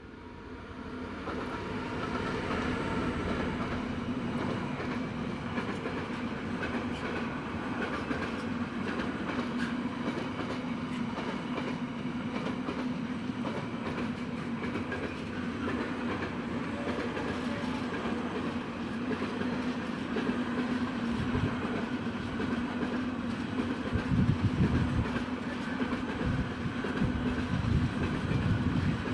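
Class 66 diesel locomotive passing at the head of an intermodal container train, followed by the steady rumble and wheel clatter of the container wagons. From about two-thirds of the way through, heavier low thumping and rattling as the empty container flats go by.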